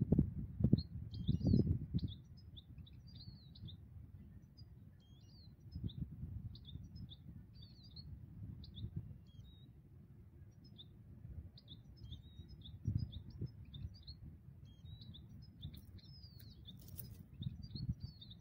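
European goldfinch singing: a run of rapid, tinkling twittered notes that goes on with brief gaps. Under it, wind rumbles on the microphone and is loudest in gusts during the first two seconds.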